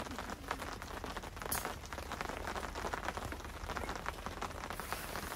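Steady rain pattering on the tent fabric overhead, a dense patter of drops with a few louder ticks.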